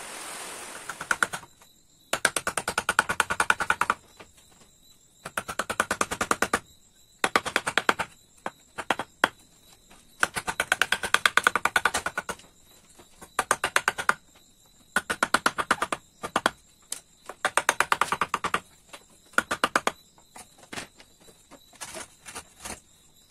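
A wooden mallet taps a steel chisel blade into a green bamboo pole to cut a mortise hole. The sharp strikes come in quick bursts of many taps a second, each burst lasting a second or two, with short pauses between.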